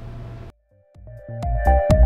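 Electronic background music with a steady beat, fading in about a second in after a low hum and a brief silence.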